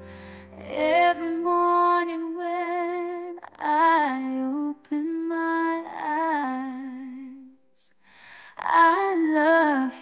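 A woman's voice singing a slow, tender pop-ballad melody in phrases with short pauses, its held notes wavering with vibrato.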